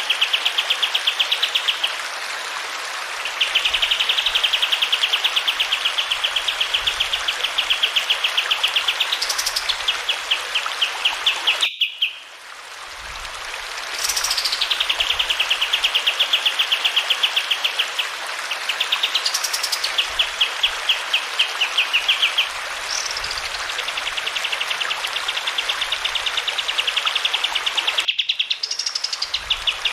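Kapas tembak songbird singing long, rapid trills on a nearly even pitch, each running several seconds, broken by a few sharp rising whistles, over the steady rush of running water. The sound drops out briefly twice, about twelve seconds in and near the end.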